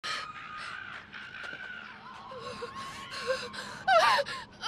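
Eerie human howling calls: long held, slightly wavering tones, then a louder warbling, yipping whoop near the end.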